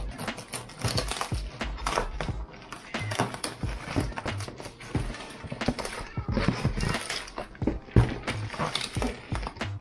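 Scissors cutting through the clear plastic wrap and tape around a cardboard parcel, with the plastic crinkling and the cardboard rustling in a dense run of irregular crackles and snips.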